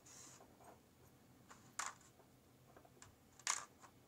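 Faint, small clicks of tiny lock pins being handled and set down on paper, with two sharper clicks, one about two seconds in and one near the end.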